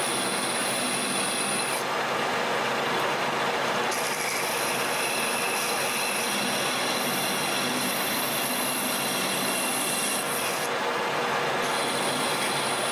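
Metal lathe turning a 4140 steel shaft, the tool taking a cut as the spindle runs: a steady hiss of cutting with a thin high whine that drops out about two seconds in, returns around four seconds and stops again before coming back near the end.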